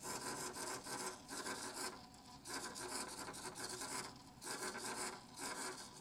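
Micro hobby servo's motor and gears whirring in about four bursts with short pauses between, as it swings its arm back and forth under control of a photoresistor that reads the light.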